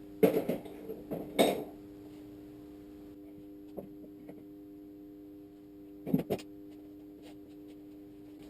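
Metal motorcycle fork parts being handled on a workbench: a few sharp clinks and knocks, two in the first second and a half, light ticks around four seconds in and a quick pair about six seconds in. A steady hum runs underneath.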